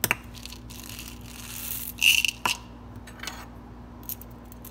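Small candy-coated chocolates rattling out of a plastic pill bottle into a small plastic cup, loudest about two seconds in, with scattered clicks of the candies and a metal spoon against the cup.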